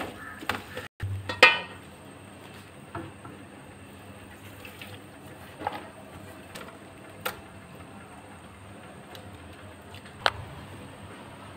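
Wooden spatula stirring a thick onion masala in an aluminium pot, with a few sharp clicks and knocks against the pot over a steady low hiss.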